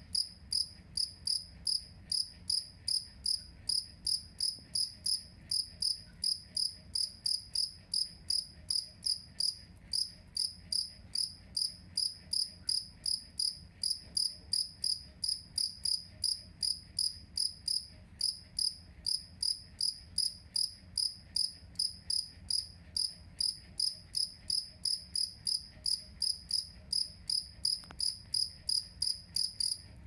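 Male two-spotted field cricket (jangkrik kalung) chirping: short, high-pitched chirps repeated steadily about two to three times a second, its wings raised and rubbing together.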